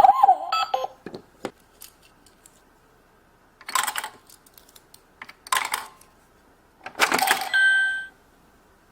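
Minnie Mouse toy electronic cash register: three short bursts of plastic and coin clatter, the last ending in a brief electronic beep.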